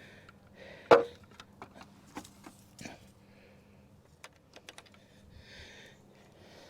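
Scattered light clicks and knocks of parts being handled after the mudguard comes off, with one louder knock about a second in and a soft rustling hiss near the end.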